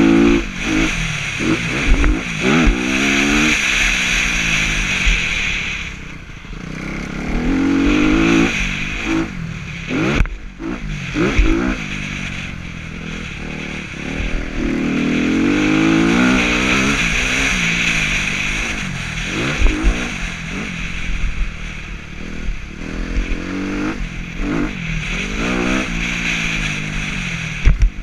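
Motocross bike engine ridden hard, its pitch climbing and dropping back again and again, with wind rushing over the microphone and a few sharp knocks.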